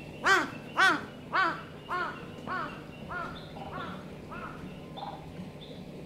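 A crow cawing in a steady run of about nine calls, nearly two a second. The first three are the loudest and the rest fade away.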